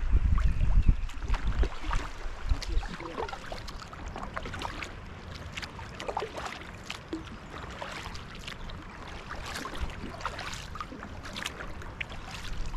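Paddling on a river: scattered small splashes and drips of water from paddle strokes over a steady wash of moving water, with wind buffeting the microphone in the first second or so.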